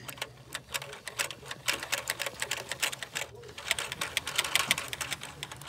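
Plastic Lego gears and the one-cylinder engine's piston of a Lego truck clicking rapidly as the mechanism is run, a fast, uneven series of sharp clicks.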